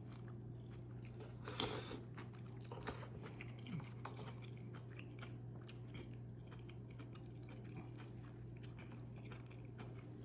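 Close-miked chewing and biting while eating malatang: many small wet clicks, with one louder burst about a second and a half in, over a steady low hum.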